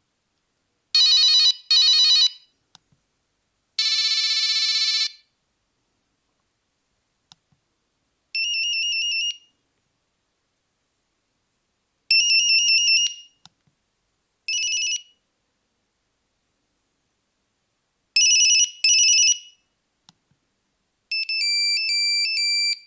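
Nokia 3310 mobile phone playing short snatches of different monophonic beeping ringtones, about a second each, one after another with silent pauses between them and faint clicks in some of the gaps.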